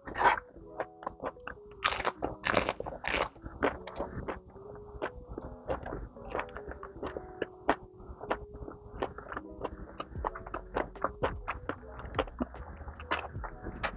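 Close-up eating sounds: crunchy bites and wet chewing, a run of loud crunches about two to three seconds in, over a soft background music tune.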